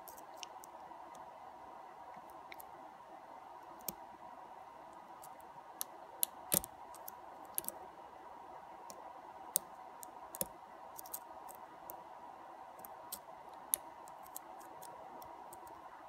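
Light, irregular metallic clicks and ticks of a diamond lock pick and tension wrench working the pin stack of a brass euro profile cylinder, with a few sharper clicks midway. A faint steady hum sits underneath.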